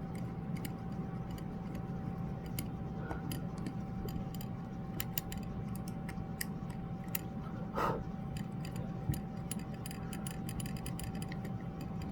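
Small, irregular metal clicks and scrapes of the blade-clamp screws being tightened on a reciprocating-saw drill attachment, with a slightly louder knock about eight seconds in, over a steady faint hum.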